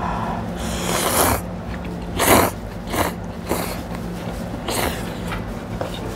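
Ramen noodles slurped in about five quick, hissing pulls, the loudest a little over two seconds in, over a steady low hum.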